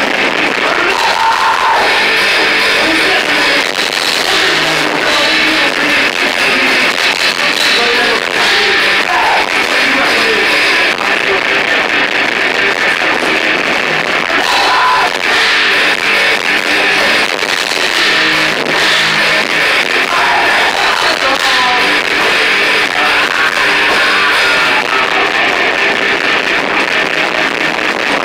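Heavy metal band playing live: electric guitar and drums with a vocalist's shouted vocals, loud and without a break.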